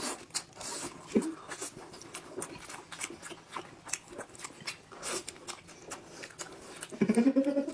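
Close-miked eating sounds: wet chewing and lip smacks as soft pancake wraps are eaten, a quick run of small irregular clicks. A short pitched voice-like sound comes about a second in, and a louder one bends in pitch near the end.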